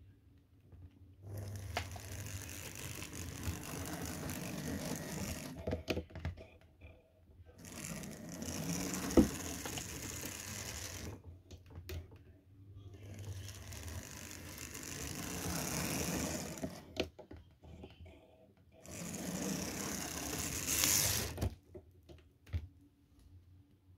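Small open-frame electric motor of a Tri-ang model locomotive chassis running in four bursts of a few seconds each, with a sharp snap about nine seconds in. It sparks and sputters: contact cleaner left on the commutator is catching fire.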